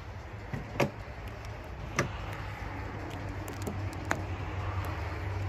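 Utility knife slicing a rubber ATV handlebar grip as the grip is worked off the bar: three sharp clicks a second or two apart amid rubbing and scraping, over a steady low hum.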